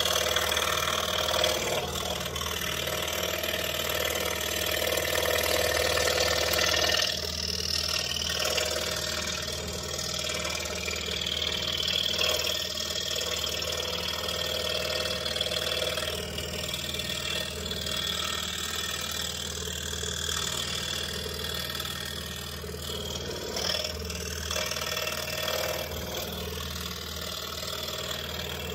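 Pegas scroll saw running steadily, its No. 3 reverse-tooth blade cutting through a thin wooden key fob blank.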